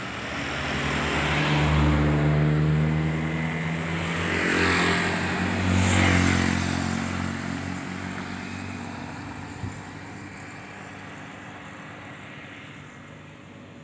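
Road traffic passing close by: a motor vehicle's engine with tyre hiss, swelling as vehicles go past several times in the first half, then fading to a quieter background. A single small knock comes a little before the end.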